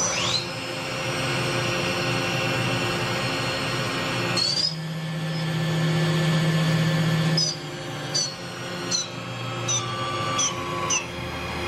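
2005 Mori Seiki NV5000 A/40 CNC vertical machining center running: a steady motor whine whose pitch glides up and down as its drives speed up and slow down. The changes come more often in the second half.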